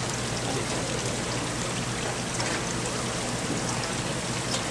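Steady rush of moving water from the diving pool's agitated surface, with a faint low hum underneath.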